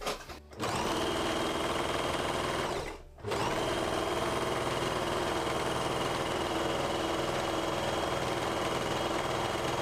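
Overlocker (serger) running steadily as it stitches and trims the edge of a flannel cloth, a test seam to check the threading. It starts about half a second in, stops for a moment at about three seconds, then runs on steadily.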